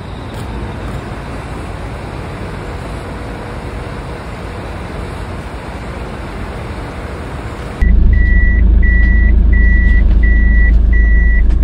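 A steady rushing noise, then a sudden change about eight seconds in to a loud low rumble with a short electronic beep repeating about one and a half times a second.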